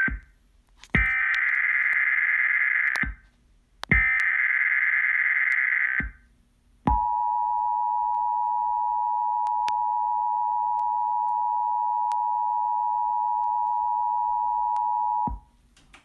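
Emergency Alert System SAME header data bursts: two harsh digital screeches of about two seconds each, with silence between. About a second later comes the EAS attention signal, two steady tones sounding together for about eight seconds, which then cuts off.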